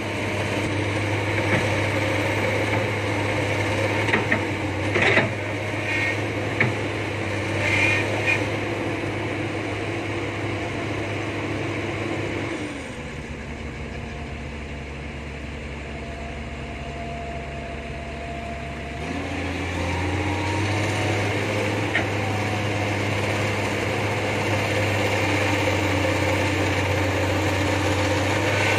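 Dump truck diesel engines idling steadily, with a few short knocks in the first eight seconds. About 13 s in the engine note drops lower and quieter for about six seconds, then comes back up.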